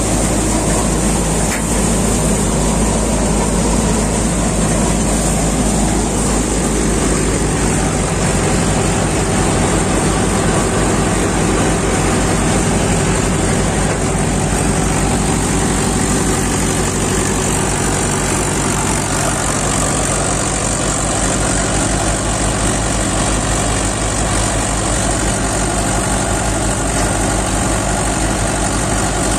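Mahindra 585 DI tractor's diesel engine running steadily under load at about 1400 to 1500 rpm, powering a belt-driven groundnut thresher whose drum and belts run with it.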